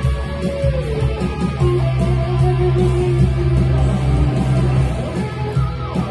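Electric guitar playing a fast picked lead line, with a note sliding down in pitch about half a second in, over a low note held underneath for a few seconds.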